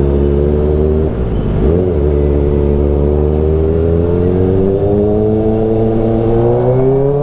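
Kawasaki Ninja ZX-4RR's inline-four engine running under way, heard from the rider's position. Its pitch dips briefly about a second and a half in, then climbs slowly as the bike speeds up. The rider calls it very loud.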